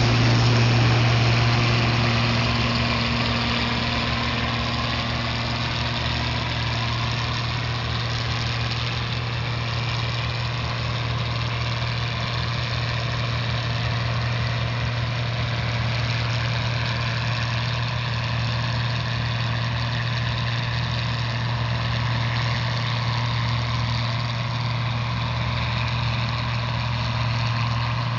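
Case IH 1420 combine running steadily while harvesting corn: a continuous engine drone with a strong low hum, a little louder in the first couple of seconds.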